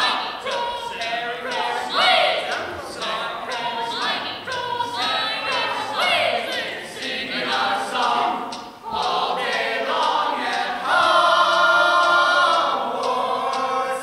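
A group of young voices singing together on stage, with a held chord near the end that is the loudest part before the singing dies away.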